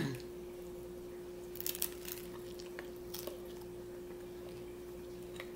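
Close-up eating sounds of a crunchy hard-shell taco being bitten and chewed, with a few crisp crunches about one and a half to two seconds in and again around three seconds in. A faint steady hum runs underneath.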